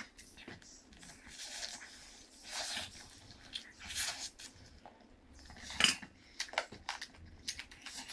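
Close-up eating sounds: chewing and mouth noises as noodles are eaten by hand, with scattered light clicks and clinks against the plate and one sharper click near the six-second mark.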